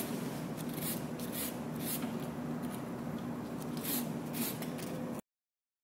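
Short, scratchy rubbing strokes, a handful at uneven intervals, as the thin wire end of a hand-wound motor coil is rubbed with a small blue abrasive piece to strip its enamel. A steady low room hum runs underneath, and everything cuts off abruptly near the end.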